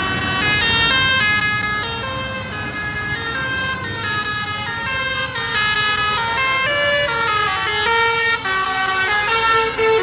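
Lorry's multi-tone telolet horn playing a tune, one note stepping to the next every fraction of a second, over low vehicle rumble.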